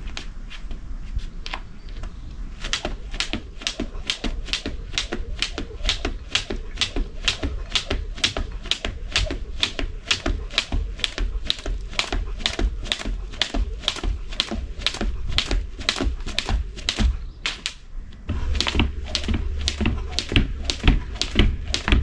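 Jump rope slapping the ground with each skip: a steady rhythm of sharp clicks, about two to three a second, that starts a couple of seconds in and breaks off briefly about three-quarters of the way through before going on.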